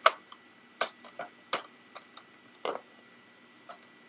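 Plastic clicks and snaps as the chrome trim of an Xbox 360 Slim case is pressed onto its clips: one sharp snap right at the start, then a few softer clicks spaced out over the next few seconds.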